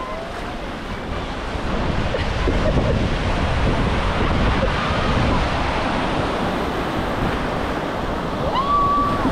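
Ocean surf breaking and washing through the shallows, with wind buffeting the microphone; the wash grows louder about two seconds in. A short high held call sounds near the end.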